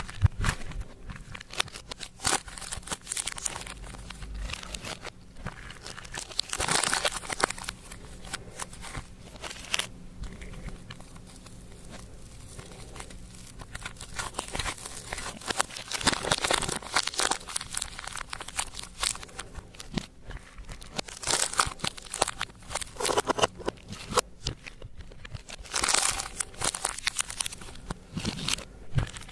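Clear slime being mixed and kneaded by hand: a dense, irregular crackling and popping, swelling in louder clusters every few seconds.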